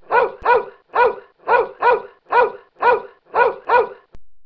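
A dog barking: a steady run of about nine short barks, roughly two a second.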